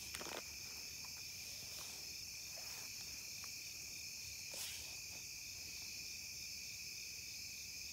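Steady, high-pitched chorus of night insects, crickets among them, with a couple of faint brief rustles, one right at the start and one about halfway through.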